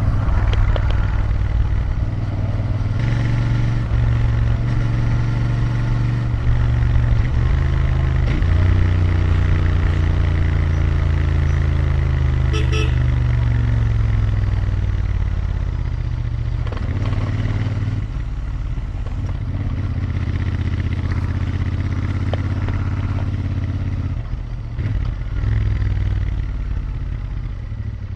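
Royal Enfield Interceptor 650's parallel-twin engine and exhaust under way on the road. The pitch steps several times in the first few seconds as it shifts, falls steadily for several seconds as the bike slows, then picks up again a little past halfway and holds fairly steady before dipping near the end.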